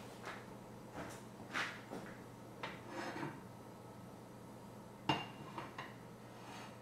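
Scattered light knocks and clinks of a sauté pan on a stovetop as it is shifted and tilted to spread the oil in it. The loudest comes about five seconds in.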